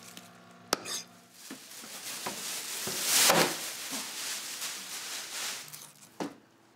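A kitchen knife chopping chicken breast on a cutting board, one sharp stroke about a second in. It is followed by a few seconds of noise that swells and fades away.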